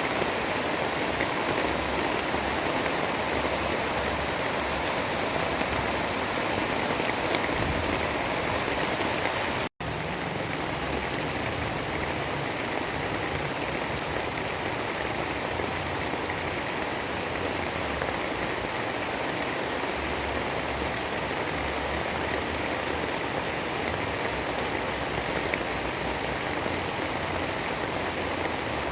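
Steady rain, an even dense hiss with no distinct drops or thunder. About ten seconds in the sound cuts out for an instant and resumes, like a splice in a looped recording.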